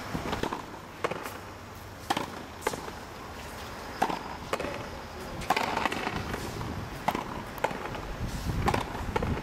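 Frontenis rally: the rubber ball cracks off the rackets and smacks against the concrete front wall, about ten sharp hits at irregular intervals, some trailed by a short echo from the court walls.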